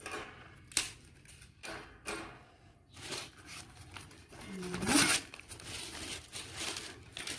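Newspaper being handled, torn and crumpled: irregular rustles and rips, the loudest about five seconds in. A sharp knock under a second in comes from wood being set into a small metal grill.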